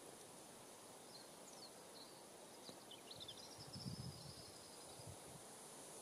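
Quiet heathland ambience: faint, high bird calls, a few short chirps and a brief trill, over a steady high hiss, with a couple of low rumbles about two-thirds of the way through.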